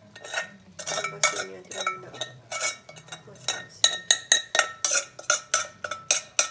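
A metal utensil knocks and scrapes against the inside of a stainless steel pot, scraping cooked white rice out of it. It makes a run of ringing metallic clinks, about three a second, which come closer together in the second half.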